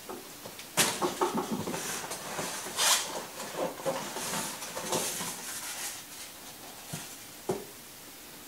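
Cardboard boxes being handled and packing rustled: irregular scraping, rustling and knocks, busiest in the first six seconds, with one more knock near the end.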